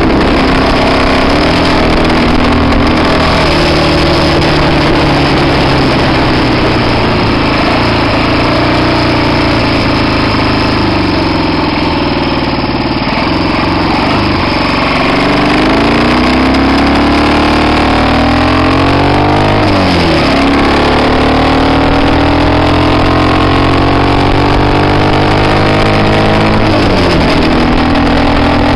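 1967 Triumph T100's 500 cc parallel-twin engine running and revving up, its pitch climbing steadily and then dropping sharply about twenty seconds in, and again near the end. The owner is chasing a misfire that appears in third and fourth gear.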